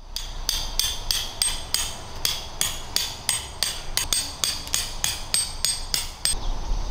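A tent peg being hammered into gravel ground: a steady run of ringing strikes, about three a second, that stops near the end.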